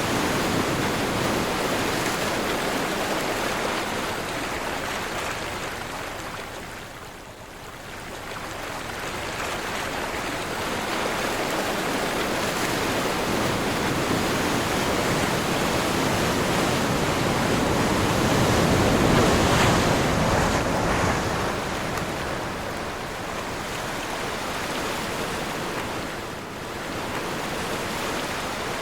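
Sea waves breaking and washing in on a windy day, a continuous rushing surf. It dips to a brief lull about a quarter of the way in, then builds to a loud surge about two-thirds through.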